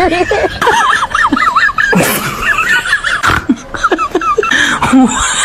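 High-pitched giggling laughter, a quick run of wavering squeaky notes.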